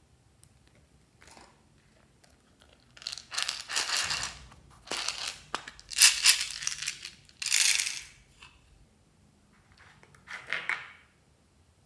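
A plastic bead box being handled and small beads tipped out of it into a glass dish of slime, heard as several short bursts of crinkly, crackling noise.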